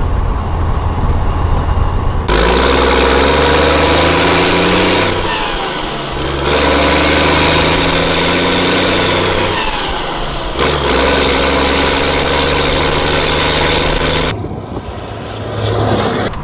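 Diesel engine of an old Ford cab-over semi truck working hard as it accelerates: a steady drone for a couple of seconds, then a louder run that climbs in pitch, breaks off twice for gear changes and climbs again. The truck is belching black exhaust smoke under the load.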